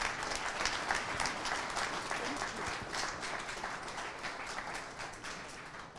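Audience applauding, a dense patter of many hands clapping that fades out near the end.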